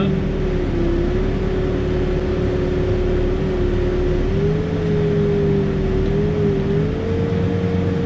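Backhoe's diesel engine running steadily, heard from inside the cab, with a steady whine over the low rumble that dips and rises slightly in pitch.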